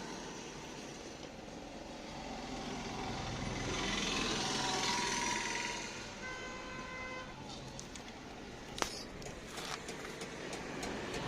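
Background noise that swells and fades like a vehicle going by, with a brief steady tone about six seconds in and a sharp click near the end.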